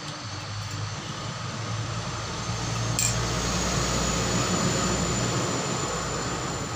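A passing vehicle: a steady rumble of engine and road noise that builds through the middle and eases off near the end. A single light clink of dishes about three seconds in.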